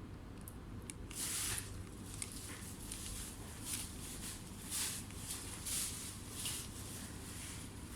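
A series of short, irregular rustling scrapes, roughly one a second, over a low steady hum.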